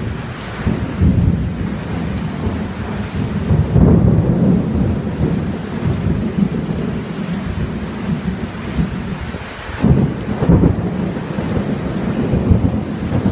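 Heavy rain pouring with thunder rumbling continuously, the rumbles swelling louder about four seconds in and again near ten seconds.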